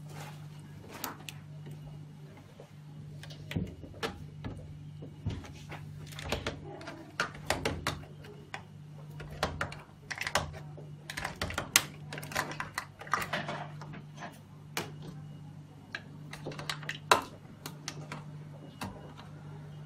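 Irregular light clicks and taps of plastic reagent tubing and fittings being handled, over a steady low hum.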